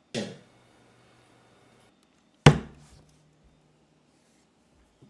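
Sudden heavy thumps, one just after the start, a louder one about two and a half seconds in and another at the end, each trailing off in a short low drone.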